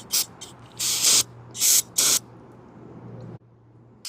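Aerosol carburetor cleaner sprayed in four short bursts into the carburetor's passages to flush them. A faint steady low hum runs underneath and stops about three and a half seconds in.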